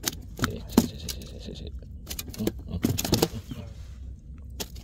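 A freshly caught mullet being handled and unhooked against the side of a wooden boat: irregular sharp knocks and clicks, several in quick succession around three seconds in, over a steady low rumble of wind on the microphone.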